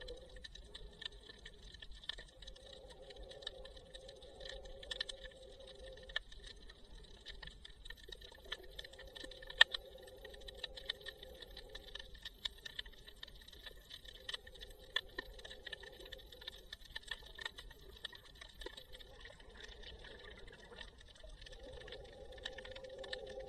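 Underwater ambience heard through an action camera's waterproof housing: a faint steady hiss with many scattered sharp clicks and crackles, one much louder near the middle. A muffled lower sound comes and goes in spells of a few seconds.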